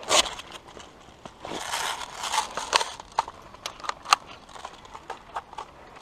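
Irregular crunching footsteps of a player moving quickly over dry ground and undergrowth, with brief rustling and sharp clicks, the loudest about four seconds in.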